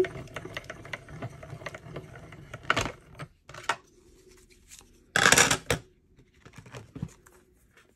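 Mini Stampin' Cut & Emboss Machine being hand-cranked, its rollers drawing a plate-and-embossing-folder stack through with a fine rapid clicking for about three seconds. Then come a couple of knocks and a loud short clatter of the plates being handled, about five seconds in.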